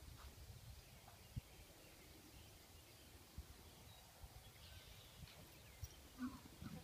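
Near silence: faint outdoor ambience with a few soft, scattered thumps and faint bird chirps.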